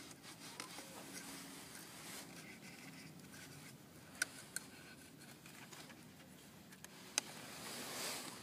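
Faint rubbing and scraping of a fabric harness strap being fed through a slot in a plastic car seat shell by hand. There are a couple of sharp clicks about four seconds in and another near seven seconds.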